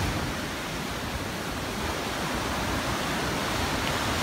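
Sea surf breaking and washing over a rocky breakwater: a steady rushing hiss of foaming water that eases slightly about a second in and builds again near the end as the next wave comes in.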